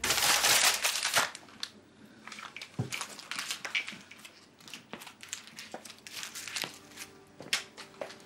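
A sheet of writing paper being crumpled up by hand, loud and dense for about the first second, then softer scattered crinkles and rustles as it is squeezed and handled.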